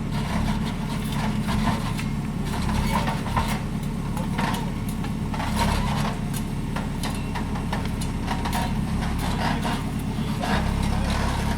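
Engine of earthmoving machinery running steadily on a worksite, with scattered knocks and clatters over it.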